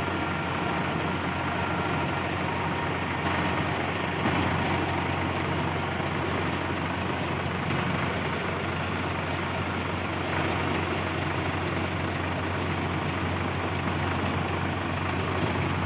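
Kubota DC70 combine harvester's diesel engine running steadily, with the even mechanical noise of the machine.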